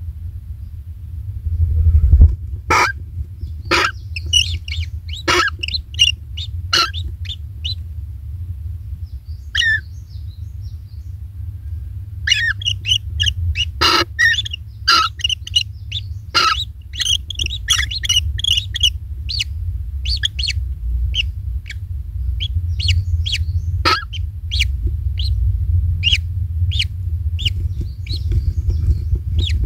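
Tengkek (kingfisher) calling: a long irregular series of short, sharp chirps, a few of them loud and clicky, over a steady low rumble.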